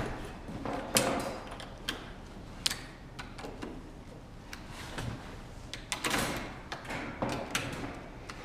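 Irregular clicks, knocks and short scrapes of hardware being handled and fitted while Festool MFT/3 work tables are joined with connectors.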